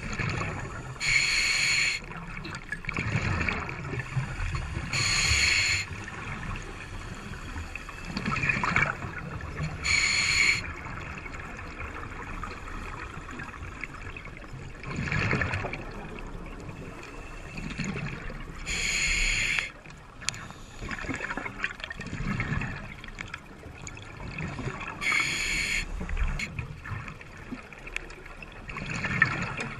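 A scuba diver breathing underwater through a regulator: about five hissing inhales, each about a second long and spaced several seconds apart, with low gurgling rushes of exhaled bubbles between them.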